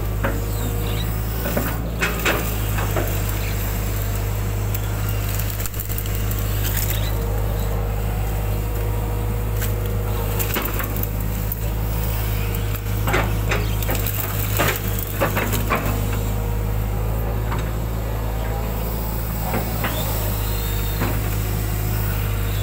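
Hitachi hydraulic excavator's diesel engine running steadily under load with a steady whine, while its bucket digs and dumps wet mud, giving sharp clanks and knocks: one about two seconds in and a cluster about halfway through.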